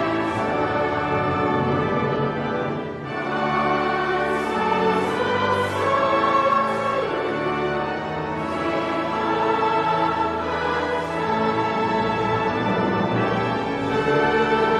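Choral music with orchestra: a choir singing sustained lines over orchestral accompaniment.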